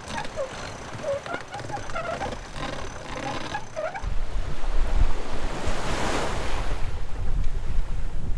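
Sailboat winch being cranked by hand, with short squeaks and clicks over wind and water noise. About four seconds in, strong wind buffets the microphone over the rush of waves along the hull of a boat sailing fast in 20 knots.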